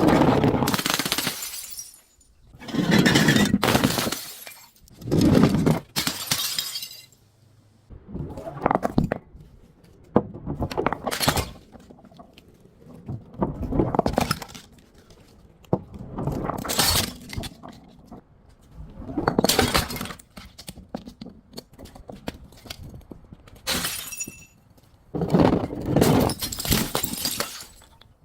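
Glass bottles being crushed and broken: about ten separate bouts of crunching, cracking and shattering, every two to three seconds.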